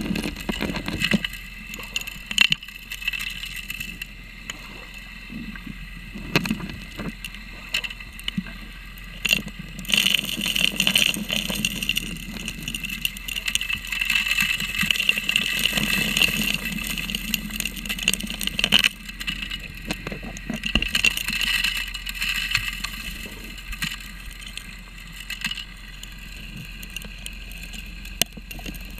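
Suction nozzle of a 3-inch gold dredge, heard underwater, drawing in streambed gravel. Stones and grit click and knock into the intake over a steady hiss and hum from the running dredge. The clatter comes in busier stretches as the nozzle works into the material.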